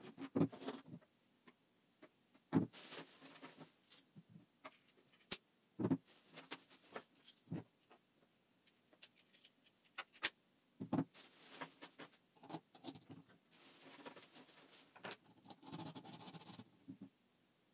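Wooden workpieces with metal bolts being handled and set down on a workbench: scattered sharp knocks and clicks, with stretches of rustling.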